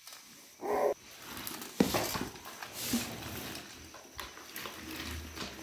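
A toddler's plastic baby walker rolling and rattling across a hard floor, with a sharp knock about two seconds in and scattered clicks and clatter; a toddler gives a short vocal sound near the start.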